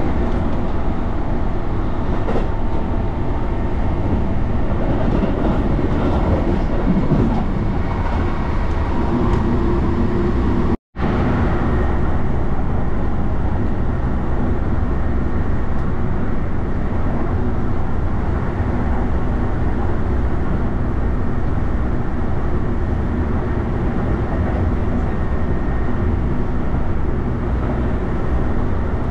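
Commuter train running, heard from inside the carriage: a steady rumble of wheels on rail with running noise. The sound breaks off briefly about eleven seconds in.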